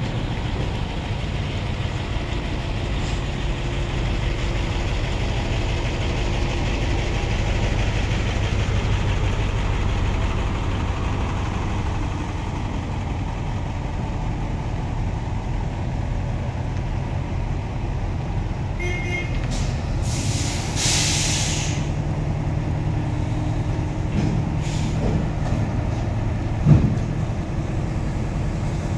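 Heavy diesel truck engine running at low speed as a container truck moves slowly into place, with a loud air-brake hiss lasting about two seconds some twenty seconds in. A few knocks follow near the end.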